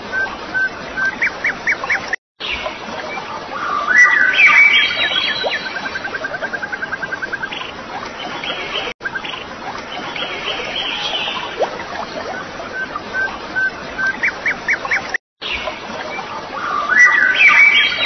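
Birds calling over the steady rush of a forest stream: short runs of quick chirps, bursts of louder calls and a rapid trill. The sound drops out briefly three times, about every six to seven seconds, and the same stretch of recording appears to repeat.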